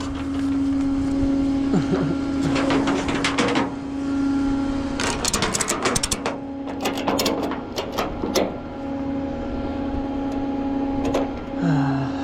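Tow truck running with a steady hum, with bursts of clicks and clatter, thickest from about five to nine seconds in.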